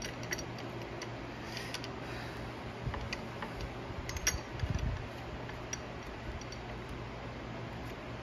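Light scattered metal clicks and taps as the ring gear and carrier are handled and seated in a Dana 30 differential housing, with a dull bump about halfway through. A steady low hum runs underneath.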